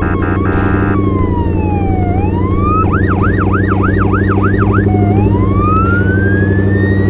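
Emergency-vehicle siren: a slow falling and rising wail, which about three seconds in switches to a rapid yelp of about eight quick up-and-down sweeps, then returns to a slow rising wail. A steady low hum runs underneath, and short beeps sound in the first second.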